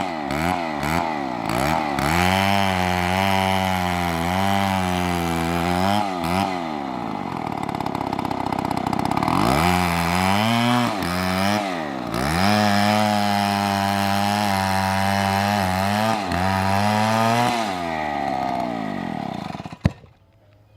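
Chainsaw running under load while cutting wood, its engine speed repeatedly sagging and recovering as the chain bites. The sound cuts off suddenly near the end.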